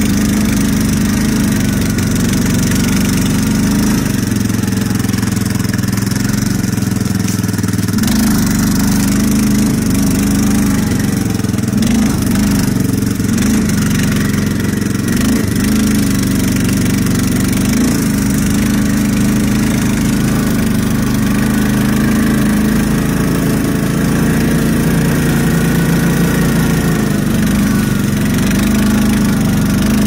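ATV (quad bike) engine running under way, steady, with its pitch rising and falling a little now and then as the throttle changes.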